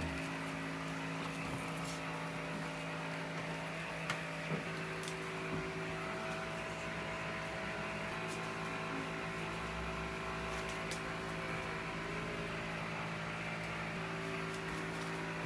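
Steady electrical hum of kitchen machinery, a few constant tones with no rise or fall, with a few faint clicks from handling on the counter about four seconds in.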